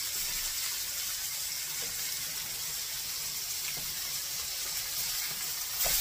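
Ground-chicken patties sizzling steadily in hot oil in a skillet as they are turned.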